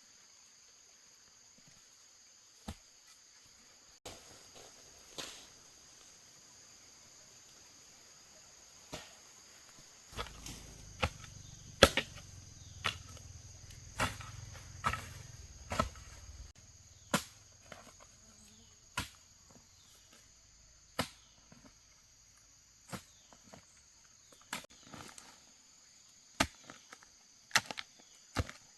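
Irregular sharp knocks or taps, roughly one every second or two and more frequent midway, over a steady high-pitched insect drone.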